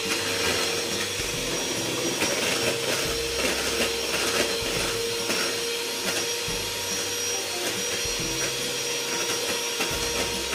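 Electric hand mixer on its stand base running at a steady speed, its beaters whisking butter and eggs into cake batter in the bowl: a constant motor whine over a whirring hiss.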